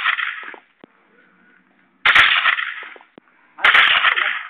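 Gunfire in loud bursts: one fading out as it opens, another about two seconds in and a third about three and a half seconds in, each starting sharply and dying away within about a second.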